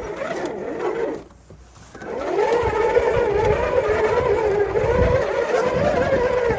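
A steady, pitched motor whine with a slight waver, starting about two seconds in after a brief drop in sound.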